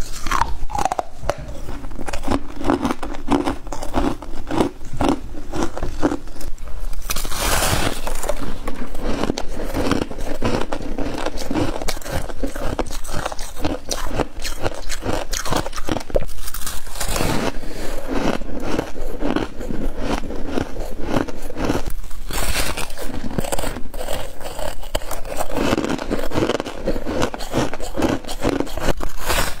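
Freezer frost chunks being bitten and chewed close to the microphone: a dense run of crisp crunches, with a few louder crunches standing out.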